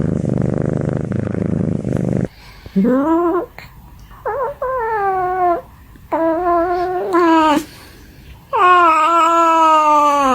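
Domestic cat purring loudly for about two seconds, then a run of about six drawn-out meows that rise and fall in pitch, the last held for nearly two seconds.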